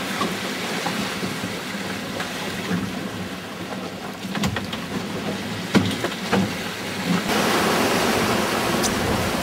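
Water rushing and slapping around a sailing trimaran's hulls in rough seas, with wind on the microphone. A few sharp knocks around the middle, and the rush grows louder from about seven seconds in.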